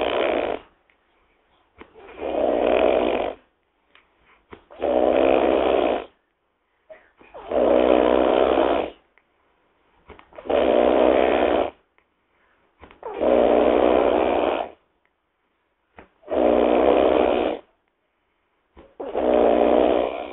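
Loud snoring in a steady rhythm: long snores about every two and a half to three seconds, each lasting about a second and a half, with quiet breaths between them.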